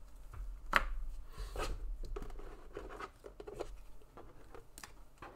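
Trading cards handled and flipped through by hand: light scrapes and soft clicks of card stock sliding against card, with one sharper click about a second in.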